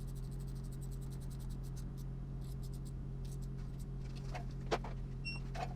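Small scratchy ticks and a few sharper knocks of hands working on engine parts, over a steady low hum.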